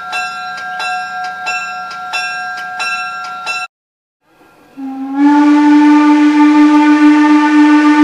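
A bell rings steadily at about three strokes a second, then cuts off abruptly. After a short gap, the whistle of 0-4-0T steam locomotive Jeddo Coal #85 sounds one long blast, sliding up in pitch as it opens and then holding steady.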